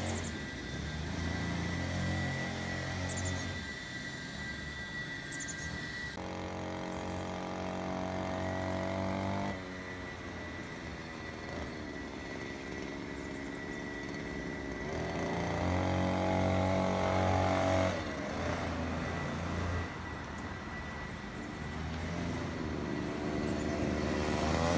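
Small 49cc two-stroke scooter engine running while being ridden, its pitch rising and falling with the throttle. It grows louder about two-thirds of the way in and again near the end.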